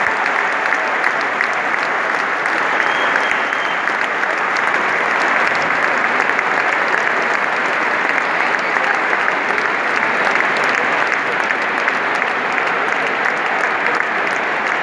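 Large stadium crowd applauding steadily, dense clapping with many voices mixed in.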